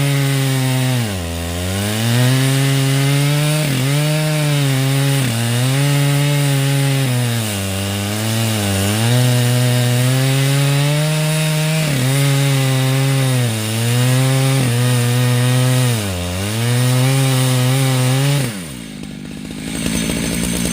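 Stihl MS 881 two-stroke chainsaw running at high revs while milling Douglas fir, its engine speed repeatedly dipping under load and recovering every second or two. Near the end the engine speed falls away sharply.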